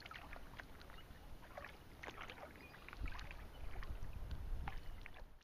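Kayak on a river: water splashing and dripping from paddle strokes and lapping at the hull in many small ticks, with a low rumble that grows louder about three seconds in.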